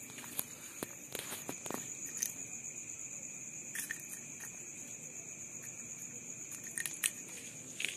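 Night insects trilling steadily in two high, unbroken tones, with scattered light taps and scratches and a sharper click about seven seconds in.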